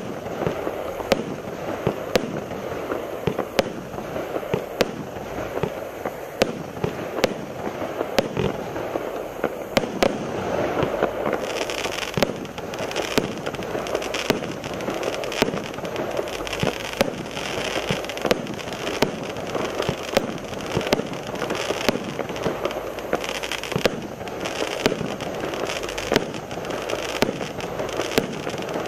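Infinity firework cake (barrage) firing continuously: a rapid, steady string of shots and aerial bursts, about two a second, over a constant crackling bed.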